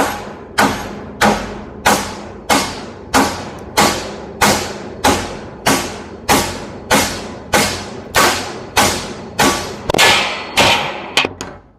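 Hammer blows on the welded seam of a microwave oven transformer's laminated steel core, striking to crack the weld. About nineteen sharp, evenly paced metallic strikes, a little under two a second, each with a brief ring.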